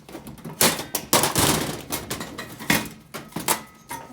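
Close handling noise: irregular knocks, clatter and rustling as a camera is moved around and set down, the loudest knocks about half a second in and near three seconds in.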